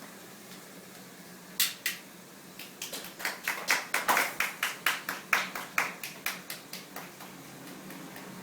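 A series of sharp clicks: two about a second and a half in, then a quick run of about four a second that grows louder and fades away near the end.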